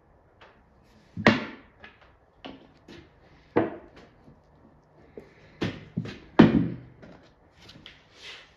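A run of irregular knocks and clunks from objects being handled and set down on a wooden workbench, loudest about a second in, again after three and a half seconds, and near six and a half seconds.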